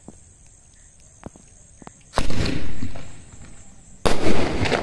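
Five-shot mini sky shot firework firing: two sudden loud bangs about two seconds apart, the first about two seconds in, each trailing off in a short fading hiss.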